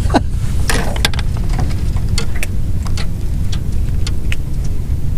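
Steady low rumble of wind buffeting the microphone, with scattered light clicks and ticks at irregular intervals.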